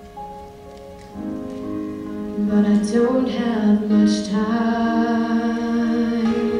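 A woman singing a slow ballad over instrumental backing; the backing is quiet for the first second, then fuller sustained chords come in and the voice carries held, slowly bending notes.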